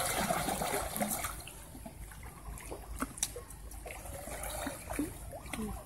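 Pool water lapping and trickling around a swimming elephant, a little louder in the first second.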